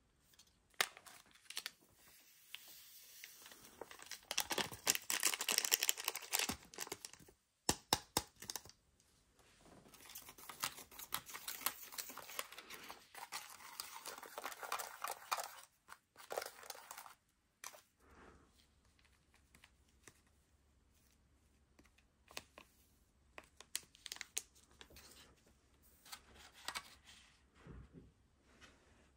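Small plastic spoon stirring and scraping powder and water in a plastic candy-kit tray: a rapid scratchy rasping in two long spells, then a few lighter taps and scrapes near the end.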